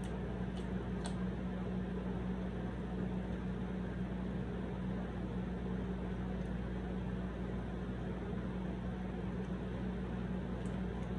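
A steady low hum over an even hiss, at a constant level throughout, with a few faint clicks about half a second and a second in and again near the end.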